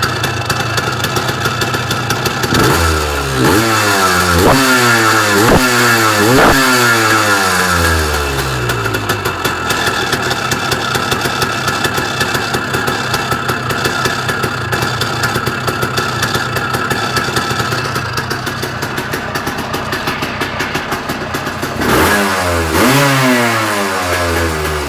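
Yamaha DT 180 two-stroke single-cylinder motorcycle engine idling, blipped about five times in quick succession a few seconds in, each rev falling back to idle, then idling steadily and blipped twice more near the end.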